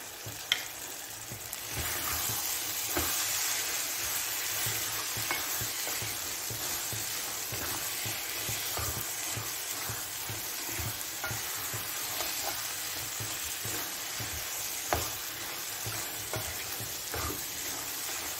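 Mutton in green masala sizzling in oil in a nonstick pan while being stirred with a spatula, with frequent scrapes and clicks of the spatula against the pan. The sizzle grows louder about two seconds in. This is the final frying stage, with the oil separated from the masala and the meat well fried.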